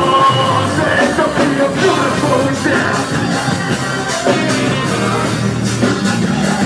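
Loud live band music with a rock sound and some singing.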